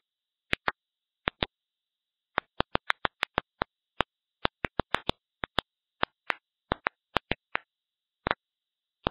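Playback of the ultrasonic popping sounds that stressed plants give off when thirsty or cut, made audible: about thirty sharp pops at an irregular pace, some in quick runs, over a faint high hiss.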